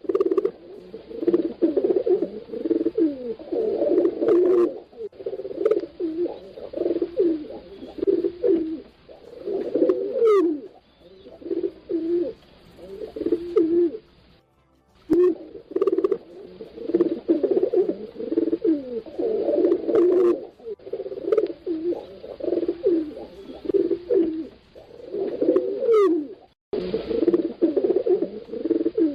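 Pigeons cooing over and over, calls overlapping in repeated phrases. The sound cuts off abruptly twice, about 14 and 27 seconds in, then resumes.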